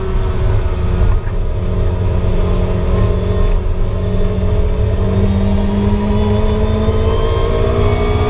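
Supercharged 1.8-litre four-cylinder engine of a 2008 Lotus Exige S240, heard from inside the cabin under hard driving through a corner. There is a brief dip about a second in, then the revs climb steadily as the car accelerates out.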